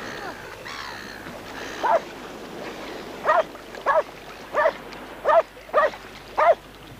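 A dog barking: seven short barks, the first about two seconds in, then a steady run of six about two-thirds of a second apart.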